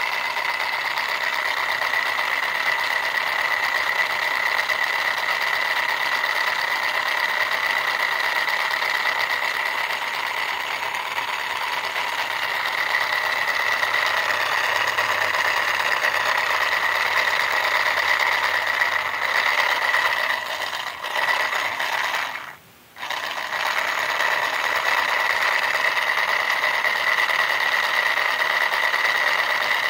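Small battery-powered DC motor driving a pair of 3D-printed plastic helical gears, running with a steady high whine; the gear pair's alignment is a bit sloppy. It starts suddenly, falters and cuts out for under a second about three quarters of the way through, then runs on.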